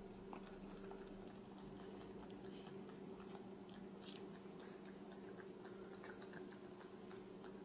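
A cat licking and chewing food from a spoon: faint, scattered wet clicks over a steady low hum.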